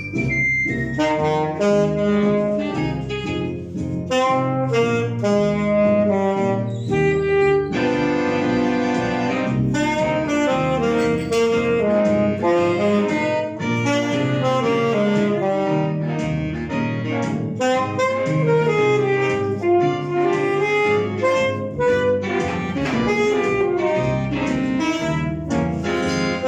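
Alto saxophone playing an étude: a busy melodic line of quick changing notes, with a longer held note about eight seconds in.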